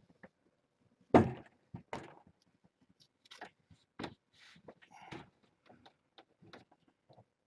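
A loud knock about a second in, then several lighter knocks and clicks scattered through the rest.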